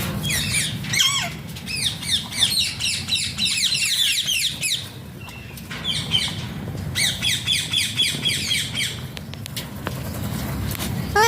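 Alexandrine parakeet squawking in fast runs of short, repeated, downward-sliding calls: a long run starting about half a second in and a shorter one around the middle, with one rising call at the end. A steady low hum sits underneath.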